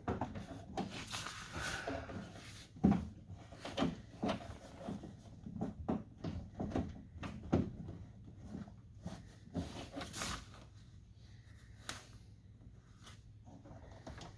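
Irregular clicks, knocks and small rattles of hands and a tool working inside a car door's inner cavity, unhooking the door handle's linkage rod and loosening its bolts. The knocks come thickly for the first half, then thin out.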